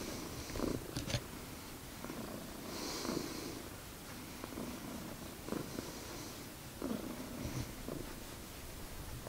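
Domestic tuxedo cat purring close to the microphone, a steady low rumble with stronger pulses every second or so.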